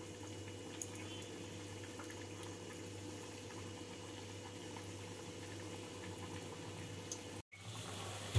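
Soya chaap deep-frying in hot oil in a kadai: a steady bubbling sizzle with small scattered crackles. It breaks off for an instant near the end, then carries on.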